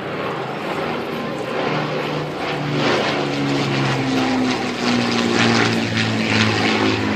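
Avro Lancaster bomber's four Rolls-Royce Merlin piston engines droning as it flies by, growing louder, with the engine note dropping slightly about halfway through.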